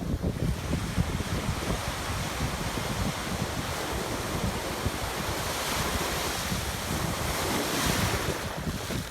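Surf breaking and washing up a sandy beach, with wind rumbling on the microphone. A wave's hissing wash swells about halfway through and falls away near the end.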